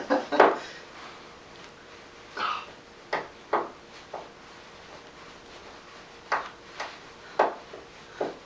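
Hand tools working in a wall switch box: about eight short, sharp clicks and taps at irregular intervals, with a soft rustle a couple of seconds in.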